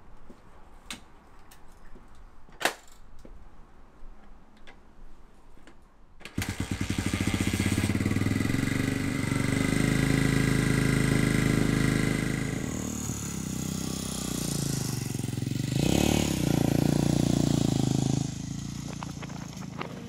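A few knocks and clicks as a dirt bike is handled, then its engine starts about six seconds in and runs loudly, revved up briefly near the end before settling.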